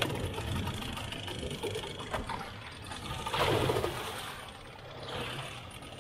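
Small Suzuki outboard motor running on an inflatable boat, with water splashing around the hull and motor; a louder splash comes about three and a half seconds in.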